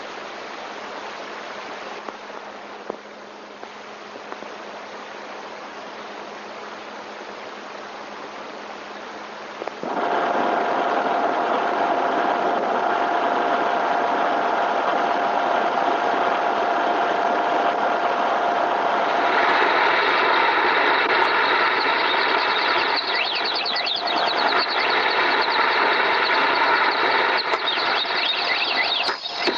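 Steady mechanical running noise with constant tones, like a motor. It jumps suddenly louder about ten seconds in, and more, higher tones join near twenty seconds.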